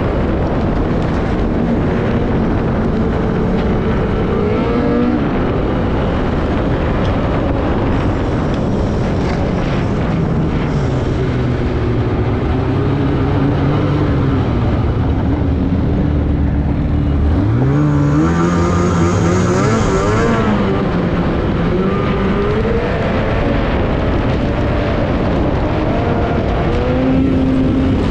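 Snowmobile engine running under way; its note sinks low around the middle as the sled slows, then climbs steeply a few seconds later as it accelerates away again.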